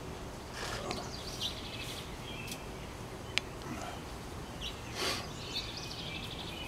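Outdoor ambience of songbirds chirping over a steady background hiss, with one sharp click about three and a half seconds in.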